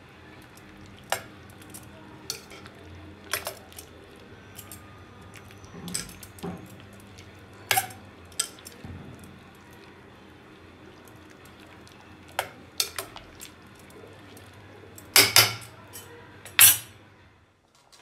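A metal utensil clinking and scraping against the inside of a stainless-steel pressure cooker pot while soft cooked chickpeas, onions and tomatoes are mixed. The clinks are scattered and irregular, with a few louder clanks near the end.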